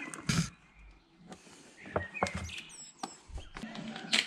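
Plastic bottle being handled, with scattered short clicks and knocks from the bottle and its screw cap as the cap is twisted.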